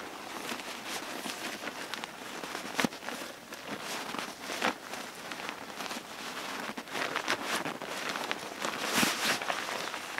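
Rustling and crinkling of a fabric hammock stuff sack as a hammock is drawn out of it by hand, with scattered sharper crackles, the loudest near the end.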